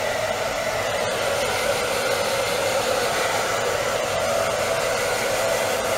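Handheld hair dryer running steadily, a constant rush of blowing air with a steady hum in it.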